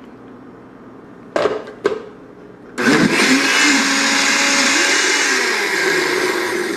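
Two short knocks, then a countertop blender starts about three seconds in and runs steadily, blending a blueberry and kale smoothie with peanut butter just added; its motor note dips partway through.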